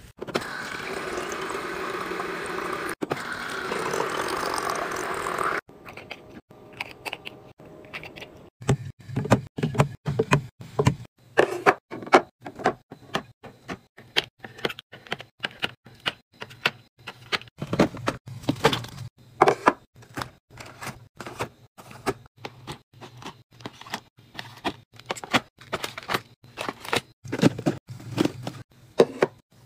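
Liquid pouring steadily for about five and a half seconds, then stops suddenly. After that, a long run of irregular clicks, knocks and light taps: containers, lids and packaged groceries being handled and set down.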